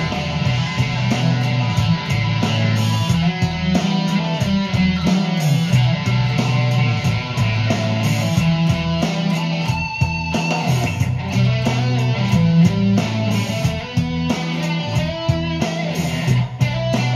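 Stratocaster-style electric guitar played over a backing track, with a steady beat and a low bass line underneath.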